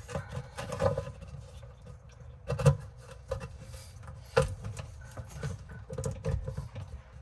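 Intermittent clicks, taps and rubbing of hard objects being handled, with the loudest knocks about two and a half and four and a half seconds in.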